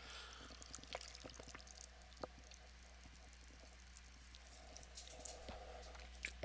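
Faint swallows and small wet clicks of water being drunk from a glass jar, over a low steady room hum; very quiet overall.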